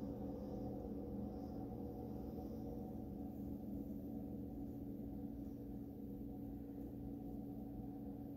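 Steady low hum made of several held tones that does not change.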